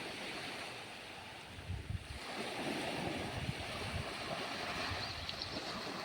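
Sea water washing and lapping, with wind buffeting the microphone in a few low thumps.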